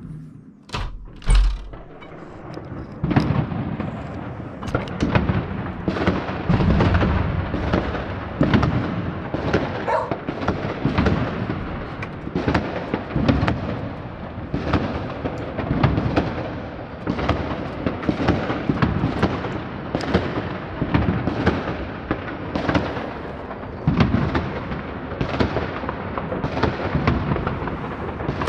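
Many fireworks going off at once: a couple of sharp separate bangs about a second in, then from about three seconds a dense, unbroken barrage of overlapping booms and crackles.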